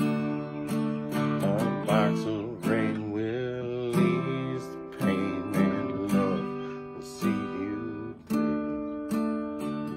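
Acoustic guitar strummed in a steady rhythm, with a man's voice singing over it for a few seconds in the middle.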